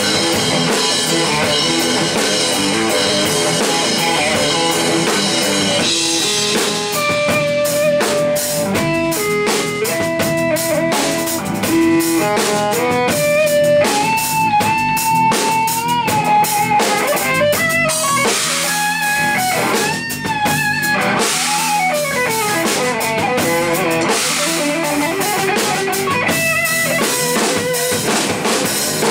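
Instrumental rock trio playing live: electric guitar, electric bass and drum kit. After about six seconds a lead line of single long held notes, some bent in pitch, stands out over the bass and drums.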